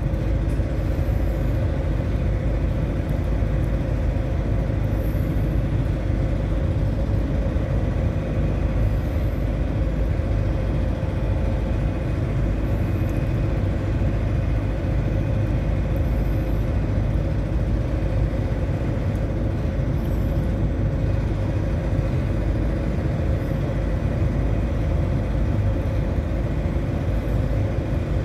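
Steady low rumble of a ship's engine, with a constant droning hum that does not change.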